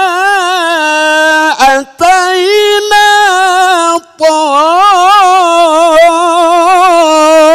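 A man's voice reciting the Qur'an in the melodic tilawah style, drawing out long ornamented vowels with a wavering pitch. He breaks off twice briefly, about two seconds in and about four seconds in.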